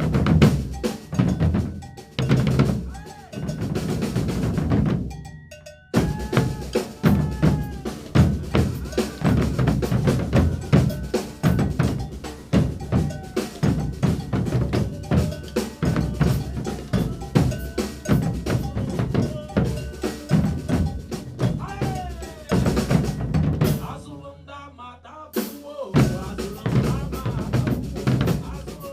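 Percussion group playing a fast coco virado rhythm on drums with a bell, dense and even. The playing stops briefly about six seconds in, then thins out for about two seconds near the end before the full group comes back in.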